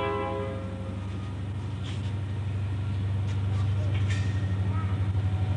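Electric motor-generator set, a 3/4 hp induction motor belt-driving a 2900-watt generator, running with a steady low hum that swells after the first second and takes on an even pulsing beat toward the end. A few light clicks occur in the middle.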